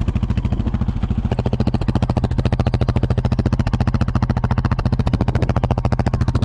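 Small off-road vehicle engine running at a steady idle, an even rapid putter of about a dozen pulses a second.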